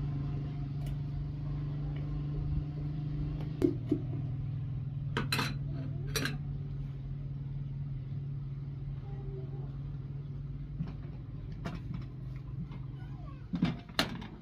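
Metal kitchenware clinking as a spoon, a tin and aluminium kettles are handled: a few separate sharp clinks, with a couple close together near the end, over a steady low hum.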